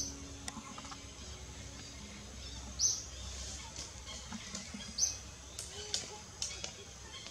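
Birds chirping: short high chirps that sweep up sharply, three of them two to three seconds apart, over faint outdoor ambience.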